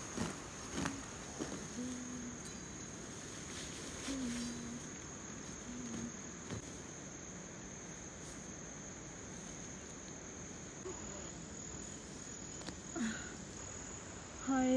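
Steady, high-pitched drone of insects in dry hillside grass. Grass rustles and is cut by hand in the first half, and a short voice sound comes near the end.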